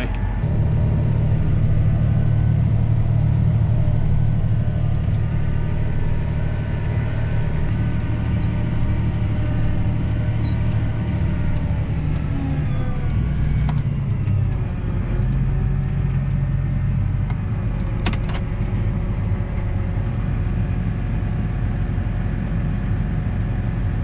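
John Deere tractor's engine droning steadily, heard from inside the closed cab while it pulls a grain cart. The engine note drops slightly about halfway through, and a single click sounds about three quarters of the way in.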